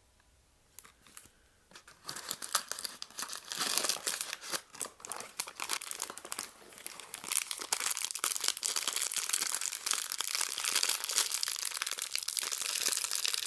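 Sturdy plastic blind-box wrapper crinkling and crackling as it is handled and pulled at by hand to tear it open, starting about two seconds in and continuing.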